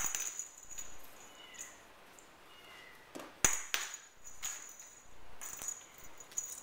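Scattered taps, knocks and rattles of a feather teaser wand and kittens' paws striking a hardwood floor as the kittens bat and pounce at the toy, the loudest knock a little over three seconds in.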